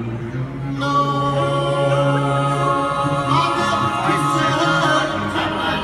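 Vocal group singing a cappella in close harmony, holding long chords that change every second or two, amplified live through a PA in a large hall.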